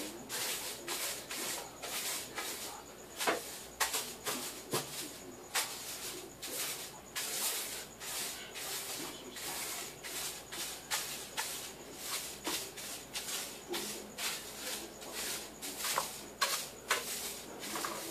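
Broom sweeping a kitchen floor in quick, short strokes: a rapid, uneven series of brushing swishes, a few each second.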